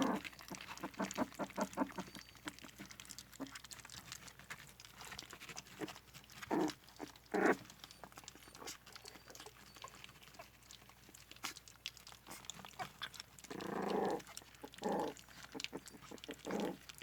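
A litter of puppies eating soft food: a steady patter of wet smacking and lapping clicks, broken by a few short whines and yelps.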